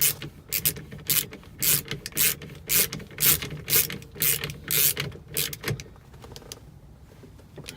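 Hand ratchet wrench clicking in repeated strokes, about two a second, tightening the steering wheel nut onto the hub; the strokes die away about six seconds in.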